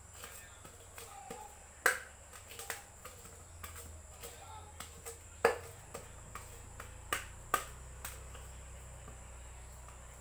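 Irregular sharp clicks and knocks of fingers and boiled potato pieces against a steel bowl as potatoes and chopped onion are mixed by hand; the loudest come about two seconds and five and a half seconds in.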